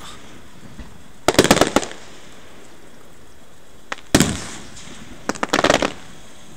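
Aerial fireworks bursting. A quick cluster of crackling reports comes about a second and a half in, a single loud bang just after four seconds, then another rapid string of crackles near the end.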